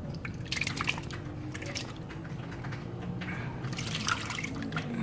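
Pond water splashing and dripping as a hand scoops a large goldfish out of the water, in two bursts: one from about half a second to two seconds in, and another around four seconds.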